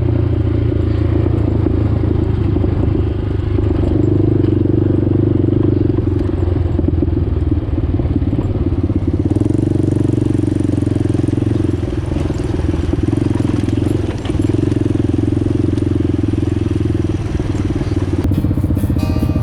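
ATV engine running steadily as the quad rides along a trail, its pitch swelling a little now and then with the throttle. Music comes in about a second before the end.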